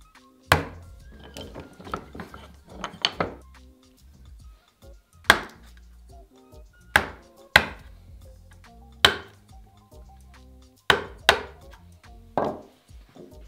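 A wood chisel being struck as it chops into the edge of a small board to cut out a rabbet: about ten sharp knocks a second or two apart, some in quick pairs. Background music with steady notes plays underneath.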